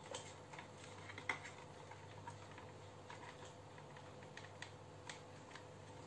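Faint, irregular plastic clicks and taps from handling a toy RC off-road truck while a battery pack is fitted into it, the sharpest about a second in, over a faint steady hum.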